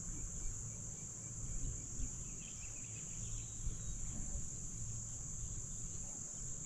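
Steady high-pitched insect chorus droning without a break, over a low uneven rumble.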